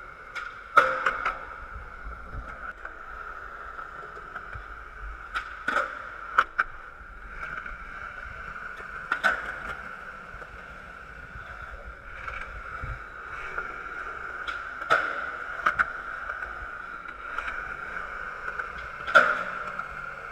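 Skateboard pops and landings on concrete: sharp clacks of the tail and wheels hitting the ground in pairs, four or five times, with a steady high-pitched hum underneath.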